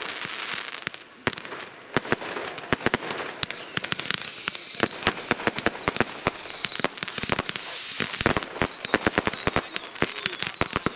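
Many fireworks going off at once: a dense run of bangs, cracks and crackling from firecrackers, rockets and aerial shells. Several high whistles fall in pitch in the middle.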